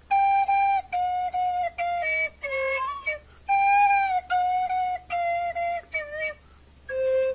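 Orange plastic recorder played by a horse blowing into it while a man fingers the holes. It plays a simple tune of steady held notes in short phrases, with brief pauses between them.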